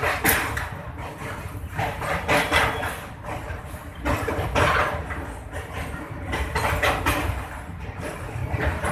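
Passenger train running, heard from inside the coach by an open window: a steady low rumble of the wheels with irregular clattering knocks.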